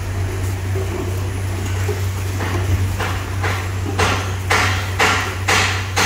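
Labeling machine running with a steady low hum. About halfway through a regular clacking starts, about two strokes a second, and grows louder as it repeats.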